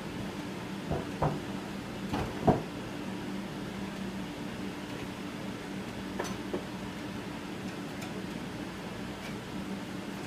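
A few knocks and clacks from the metal frame of a flame-spread test tunnel being handled, in a cluster over the first few seconds with the loudest about two and a half seconds in, and a couple of lighter ones later. Under them runs a steady low hum.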